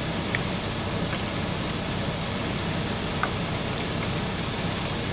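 Steady hum and hiss of running machinery inside a truck cab, with a couple of faint light clicks as a pan of cheese sauce is stirred.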